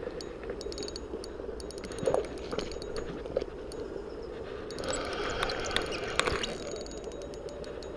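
Spinning reel being cranked with a hooked salmon on the line, its gears ticking in quick runs.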